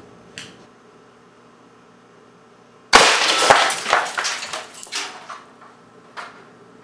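A CO2 air cannon shot: a 900-grain hard-cast lead slug strikes a high-voltage capacitor target set against steel backstop plates. There is a sudden loud crack about three seconds in, then about two seconds of scattered clattering and knocks as the capacitor and debris fall, and one last knock near the end.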